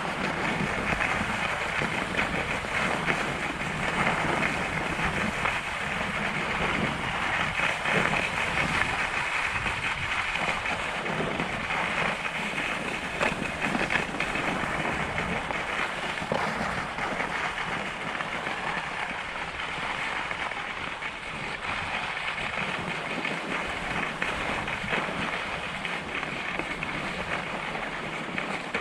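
Skis sliding and scraping over packed, groomed snow, a steady hiss with occasional crackles, with wind buffeting the microphone.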